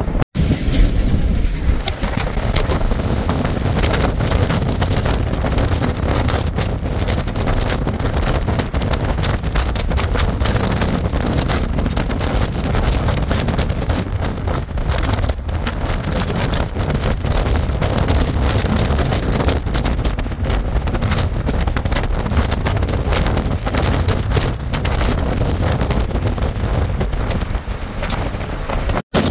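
Strong wind buffeting the microphone in a constant gusty rush, with rain, close to a wedge tornado.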